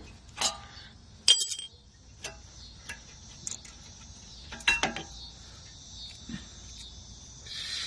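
Metal clinks and clicks as worn rear brake pads are worked out of the caliper bracket. There are a few short ringing clinks, the loudest about a second in and a small cluster near the five-second mark.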